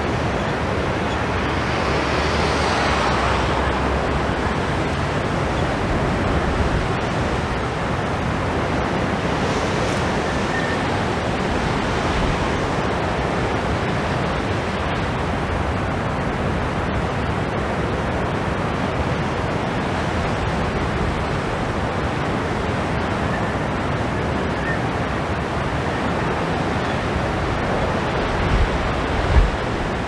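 Strong wind over heavy sea surf: a steady rush of breaking waves. Near the end, gusts buffet the microphone with low thumps.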